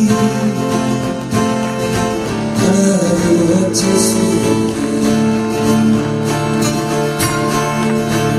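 Music: an acoustic guitar strummed steadily, playing a folk-pop song.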